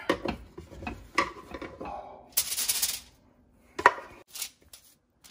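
Spatula scraping and knocking against a stainless steel saucepan as mashed potato is scooped out onto a foil-lined baking sheet. There are several sharp knocks and a brief harsh scrape a little past two seconds in.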